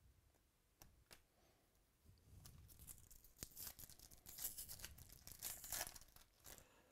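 Foil wrapper of a Topps Chrome baseball card pack being torn open and crinkled by hand, crackling for about four seconds from a couple of seconds in. Two light ticks come before it, about a second in.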